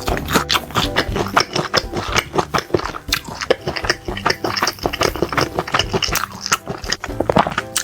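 Close-miked chewing and biting of crunchy food, many irregular crisp crunches and wet mouth sounds throughout.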